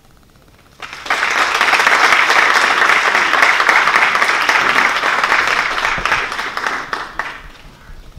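Audience applauding, starting about a second in, holding steady, then dying away near the end.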